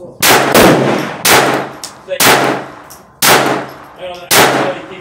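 Glock 44 .22 LR pistol firing cheap ammunition: six shots, about one a second with the first two close together, each followed by a short echo.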